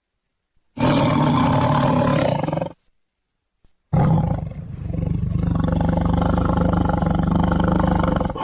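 Tiger roaring twice: a roar of about two seconds, then after a short pause a longer roar of over four seconds.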